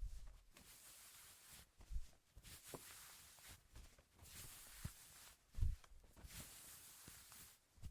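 A bandage being wrapped: a series of soft rustling strokes, each about a second long, with a few dull low bumps, the loudest about two seconds in and again near six seconds.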